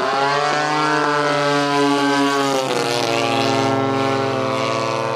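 DLE-30 gasoline two-stroke engine of a Peak Models Sbach 30cc RC aerobatic plane running in flight. Its propeller buzz rises sharply in pitch at the start, holds, then drops about three seconds in and settles at a lower steady note.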